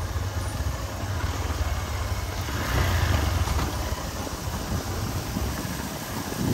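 Motorcycle engine running while the bike rides along a rough dirt road, a steady low rumble that swells briefly about three seconds in.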